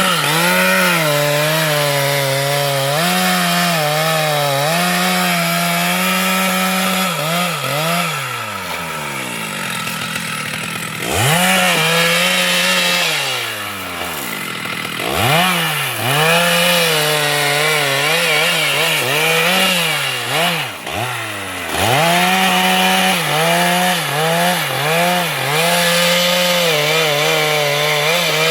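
Chainsaw running at high revs and cutting wood, its engine note wavering under load. Three times the throttle is let off and the note falls away, then it is revved straight back up.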